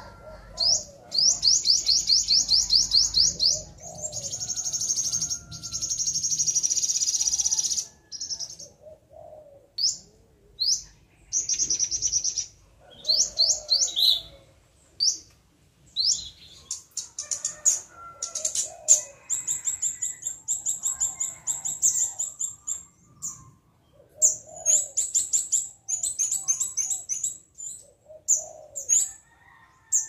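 Small songbirds calling: quick runs of high, thin chirps and trills, some held for several seconds, broken by short pauses.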